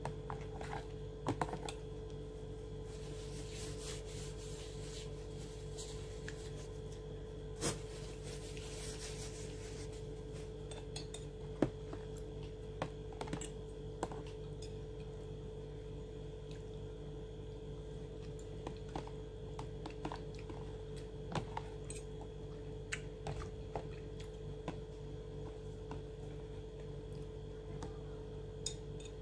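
Metal fork clicking and scraping against a plate while eating, in scattered taps. A steady low hum runs underneath.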